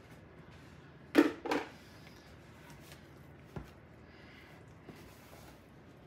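Two sharp knocks about a second in, then faint clicks and scrapes as a fork stirs pie-crust dough in a mixing bowl.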